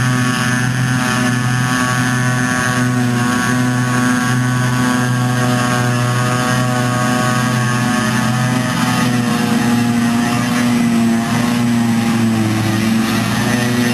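John Deere 6850 self-propelled forage harvester at work chopping wilted grass for silage, its engine and chopping machinery running under load with a steady drone, together with the tractor pulling the silage trailer alongside.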